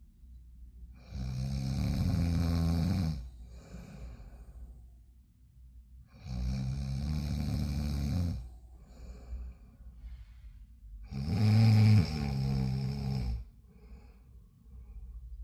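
Loud snoring: three long snores about five seconds apart, each lasting about two seconds, with softer breaths between them.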